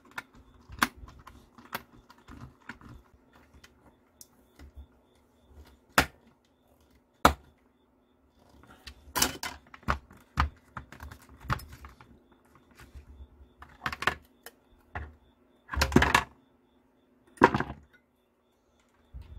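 Sharp clicks and knocks of plastic and circuit-board parts being handled and fitted together on a Ninebot Segway Mini battery pack. The clicks are scattered, with busier clusters around the middle and near the end.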